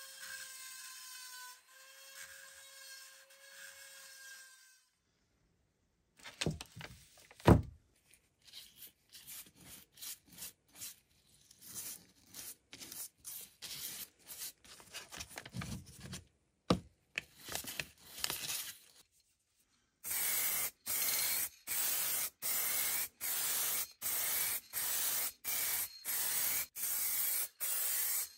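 Three sounds in turn. First, a small handheld rotary tool whines steadily as it works in a nail hole of an old iron horseshoe. Then a stiff paintbrush scrubs degreaser onto the horseshoe with irregular scratchy strokes and two loud knocks. From about two-thirds of the way through, an aerosol spray-paint can hisses in short repeated bursts, about one and a half a second.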